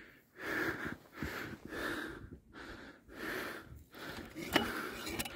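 A man breathing hard in a run of rhythmic, breathy huffs, about one breath a second.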